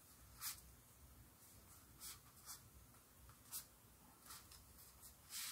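Near silence broken by about five faint, brief paper rustles: tarot cards being handled and slid out of their paper sleeve.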